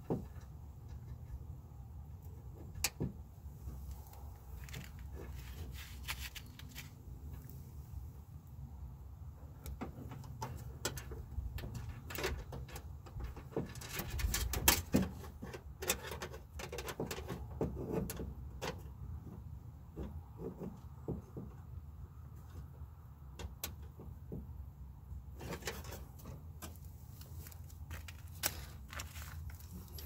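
Scattered clicks, taps and light rattles of lock rods, clips and a metal bracket being handled inside a 2012 Nissan Frontier's bare metal door shell. The clicks come thickest in the middle and again near the end, over a low steady background rumble.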